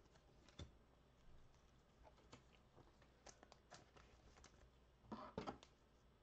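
Near silence with faint scattered clicks and light taps of trading cards being handled, and one slightly louder soft sound about five seconds in.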